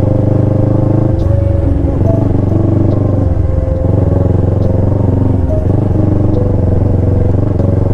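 Motorcycle engine running at steady low revs, with small wavers in its note.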